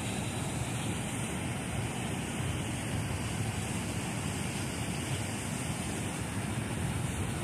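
Steady, even rush of river water at a dam, with no breaks or separate events.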